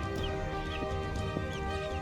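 Background music with long held notes, with a few short, high chirps from small birds over it.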